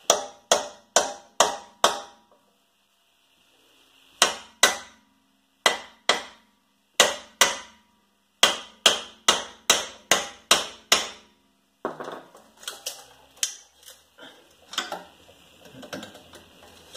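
Hammer blows on steel, driving out a seized rear wheel hub: five quick strikes, a pause, two pairs, then a fast run of about ten ringing strikes, followed by lighter metal knocks and clinks.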